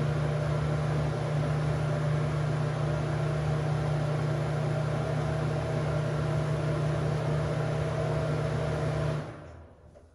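Bathroom exhaust fan running with a steady motor hum and the rush of air, on a freshly cleaned and lubricated motor, during a noise test; it stops about nine seconds in. It sounds a little bit better, hard to tell.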